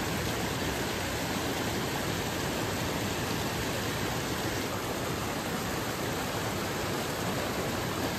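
A shallow, fast-flowing trout stream rushing over rocks in white riffles, a steady, even rush.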